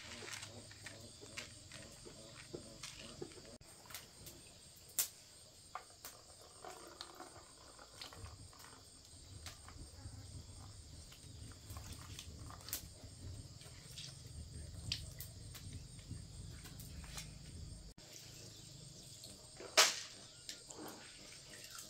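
Insects chirring steadily in the background, with scattered light clicks and knocks of things being handled and one sharper knock near the end.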